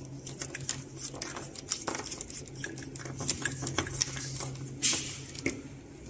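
Plastic parts of a waterproof fiber-optic connector being twisted and fitted together by hand: many small quick clicks and scrapes, with a louder scrape about five seconds in.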